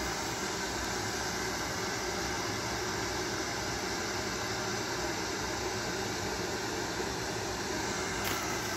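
Steady hiss of background room noise, with one faint click near the end.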